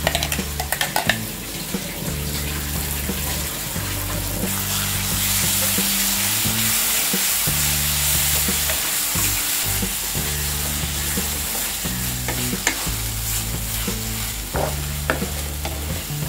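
Red-chilli masala paste frying in oil with onion and tomato in a nonstick pan, sizzling steadily while a wooden spatula stirs and scrapes it around. There are a few sharp utensil clicks near the start.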